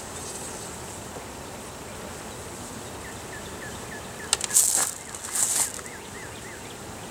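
Steel hive tool scraping and prying along the propolis-glued wooden frames of a beehive: two short, rasping scrapes about halfway through.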